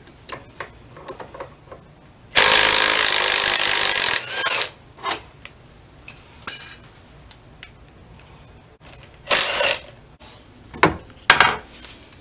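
A cordless power tool runs in one loud burst of about two seconds, fading out over the next half second, then runs again briefly near the end, unfastening front suspension bolts. Sharp metallic clinks and clanks of tools and parts come in between.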